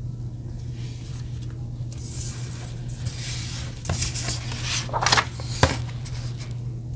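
Paper rustling as washi sticker strips are handled and a disc-bound planner page is turned, with a few sharp clicks and crinkles about four to six seconds in. A steady low hum runs underneath.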